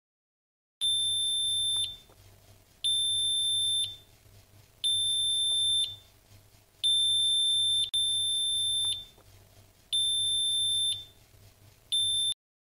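Electronic beeper sounding a high, steady single-tone beep about a second long, repeating about every two seconds, about six times. It cuts off short near the end.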